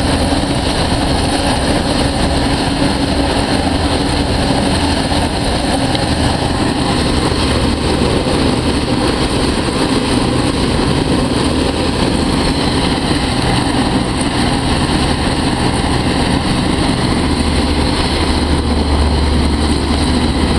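Solent Flyer hovercraft's engines, lift fans and twin ducted propellers running on the pad: a loud, steady drone with a deep rumble that strengthens near the end.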